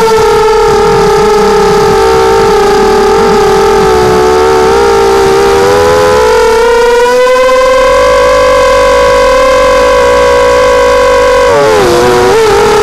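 Six brushless motors of a small FPV hexacopter (Tiger MN1806 2300kV) whining in flight, recorded on board: a steady high-pitched hum whose pitch rises about six seconds in. Near the end the pitch drops and wobbles briefly as the craft flips over, then steadies again.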